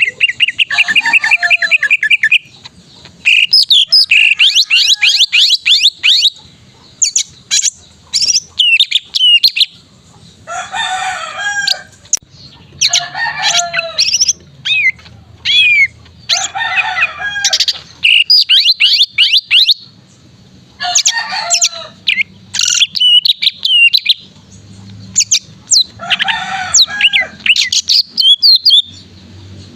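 Male cucak ijo (green leafbird) singing a loud, varied song: quick whistled notes and sliding calls, a rapid trill near the start, and harsher chattering phrases every few seconds.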